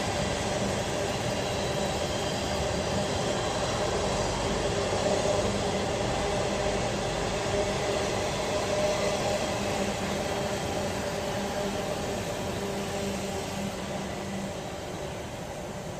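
Train passing: a steady rumble with faint humming tones, gradually fading over the last few seconds.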